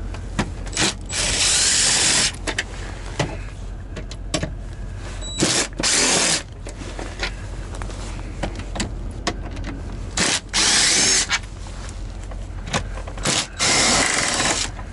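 DeWalt cordless drill/driver backing out screws in four short runs of about a second each, with small clicks and knocks of handling between them. A steady low hum runs underneath.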